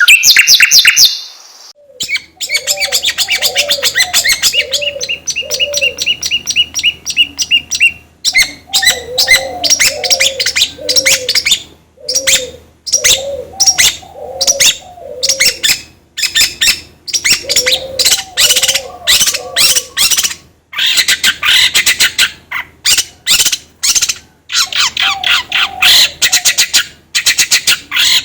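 Several songbirds singing loudly together, a dense run of fast high chirps and trills with a lower cooing call repeated in short groups of three or four. This is the kind of lure birdsong played to set cage songbirds singing.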